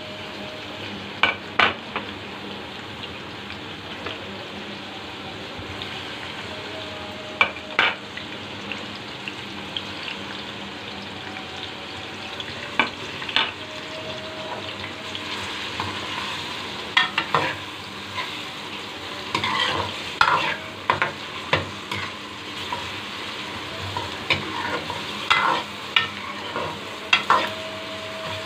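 Sliced onions sizzling in hot oil in a metal kadhai, with a metal ladle stirring them and scraping and clinking against the pan now and then.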